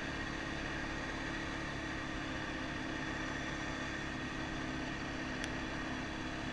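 ATV engine running steadily while riding along a gravel trail.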